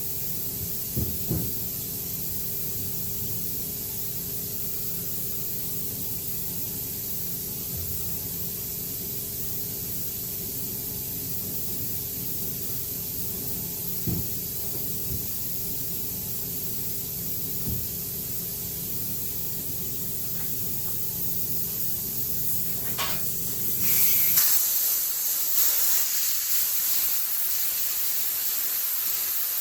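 Steady hissing over a low machine hum, with a few soft knocks. The hum stops abruptly about 24 seconds in, and louder hissing follows in uneven bursts.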